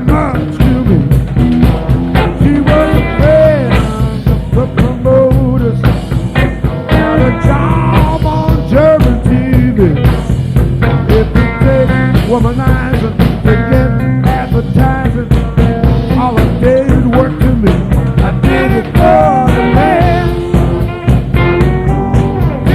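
Live blues-rock band playing, with a lead line of bending, wavering notes over bass and a steady drum beat; a direct soundboard mix.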